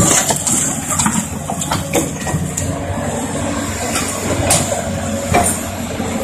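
Caterpillar 320D tracked excavator's diesel engine working steadily under hydraulic load. Sharp knocks and scrapes of broken concrete slab against the steel bucket cut across it, the loudest right at the start, then a few scattered clunks.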